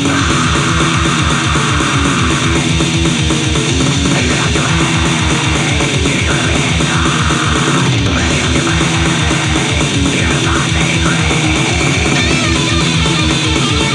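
Goregrind song: loud, heavily distorted guitars over fast, evenly pounding drums.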